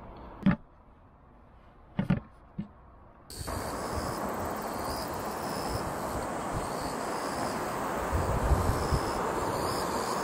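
Three short, sharp knocks, then about three seconds in a steady outdoor hiss sets in suddenly, with insects chirping in short, evenly repeated calls high above it. Low rumbles of wind on the microphone come near the end.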